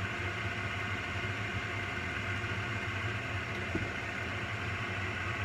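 Steady low hum with an even hiss above it, the continuous drone of a running fan or appliance motor.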